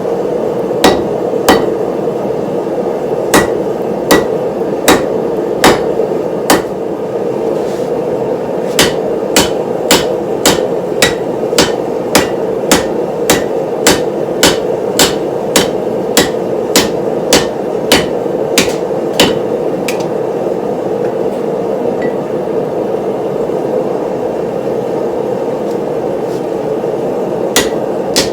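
Hammer blows on steel during hand forging of a cleaver blade, sharp ringing strikes at about one and a half a second, pausing for several seconds near the end before starting again. A steady rushing noise runs underneath.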